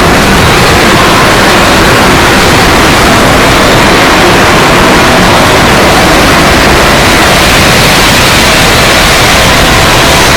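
Loud, unbroken static-like noise spread evenly from low to high pitch, steady throughout, with no gurgles, pitch or rhythm standing out.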